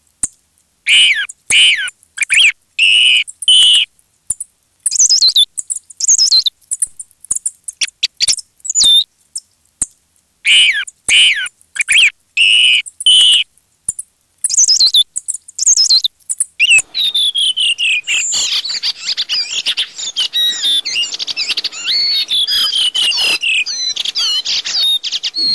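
Redwing thrush calls: short, high falling notes in repeated bursts. About two-thirds of the way through they give way to a dense, continuous twittering of many overlapping calls.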